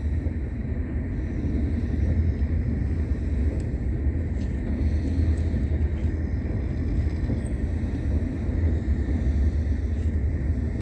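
Passenger express train running at speed: a steady low rumble with a rushing noise over it and a few faint ticks.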